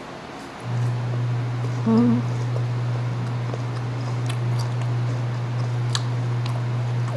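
Chewing of crisp green mango, with a few sharp crunches, over a steady low hum that comes on under a second in.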